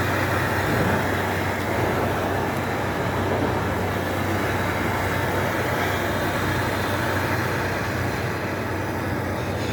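Steady mechanical running noise: a constant low hum under a dense, even hiss, unchanging throughout.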